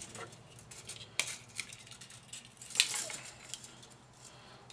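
Light metal clinks and clatter from scrap parts being handled, with two sharper clinks about a second and a half apart, the second the louder.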